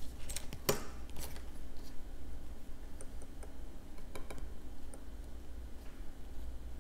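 Light clicks and taps of metal forceps and glass microscope slides being handled on a table. Several sharp clicks come close together in the first second, then fainter scattered ticks follow about three to five seconds in, over a low steady hum.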